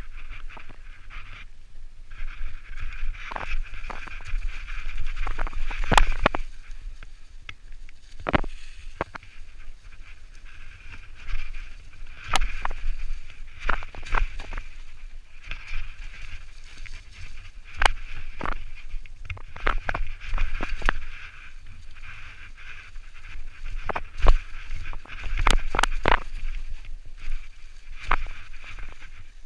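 Propain Tyee enduro mountain bike ridden down a leaf-covered trail: a steady rumble of tyres and wind on the helmet camera with a steady buzz above it, broken by frequent sharp knocks and rattles as the bike hits bumps.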